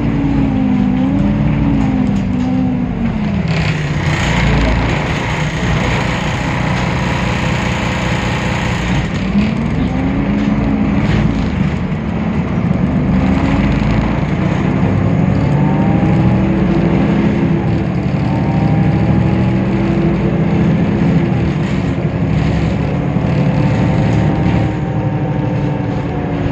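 Diesel engine of a Temsa Avenue LF city bus (DAF PR 228) running under way, its pitch rising and falling repeatedly as the bus pulls away and slows, with road noise beneath.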